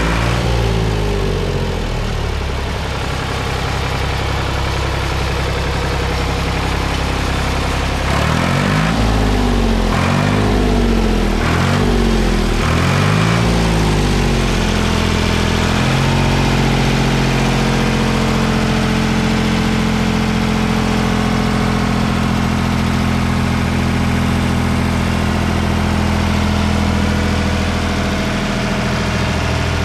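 1976 Ford 4600 tractor's three-cylinder engine running: revved up and back down about four times in quick succession around the middle, then settling into a steady idle.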